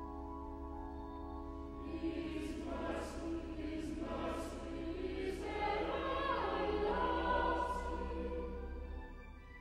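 Choral music: a choir singing held chords, with the hiss of sung consonants coming through every second or so. The music fades down near the end.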